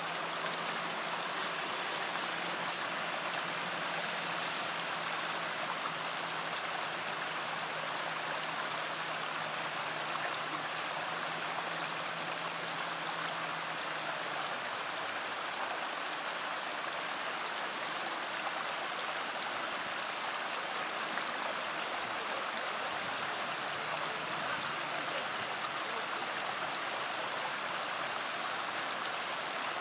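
Shallow mountain creek flowing over rocks: a steady rush of running water.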